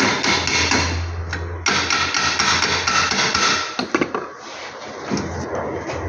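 Stick (arc) welding: the electrode arc crackling loudly in two long runs with a brief break about a second and a half in, dying down about four seconds in, over the steady hum of the welding machine.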